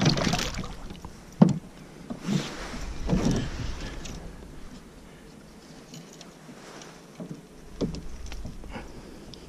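A hooked bass thrashing and splashing at the surface beside a canoe, in bursts during the first few seconds, with a sharp knock about a second and a half in and a few lighter knocks near the end as the fish is handled by the line.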